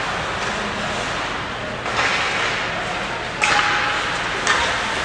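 Ice hockey play echoing around an indoor rink: a steady wash of skates and crowd noise, with three sharp cracks of sticks and puck about two, three and a half and four and a half seconds in.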